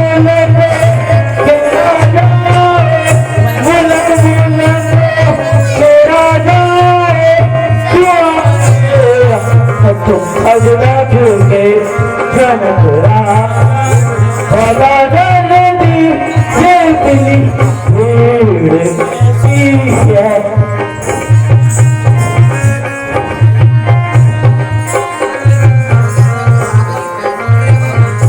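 Music: a low drum beat pulsing in a steady rhythm under a wavering melody line, with a denser, brighter layer of sound coming in about two-thirds of the way through.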